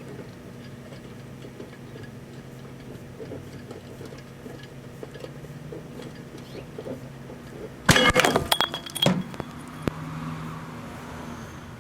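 Microwave oven humming with a snow globe heating inside; about eight seconds in, the snow globe bursts with a loud bang and a second of clattering as its top shoots off and knocks the microwave door open.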